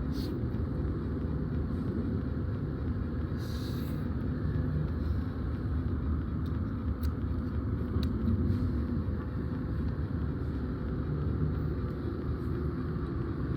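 Steady low rumble of a running motor, with a brief hiss about three and a half seconds in and a few faint ticks, as a chicken wing is eaten.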